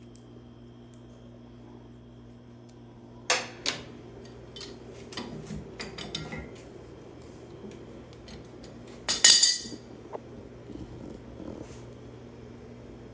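Hand tools and metal parts clinking and clanking against the cast-metal body of an air compressor pump as it is taken apart. There are two sharp clanks about three seconds in, a run of lighter clicks, then a loud ringing metal clatter a little past nine seconds, all over a steady low hum.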